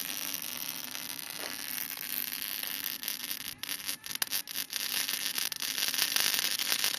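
MIG welder's arc crackling and hissing steadily as it welds a steel tube onto a bicycle frame. The arc breaks off briefly a few times about halfway through, then runs on.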